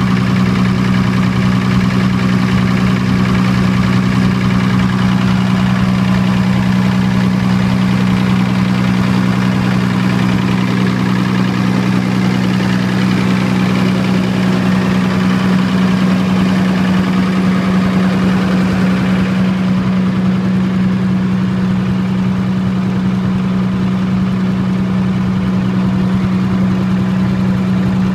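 Diesel generator engine running steadily at constant speed: an even, unchanging drone.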